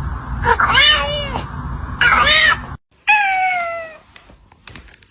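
A cat meowing: two short meows in the first half, then a longer drawn-out meow that falls in pitch.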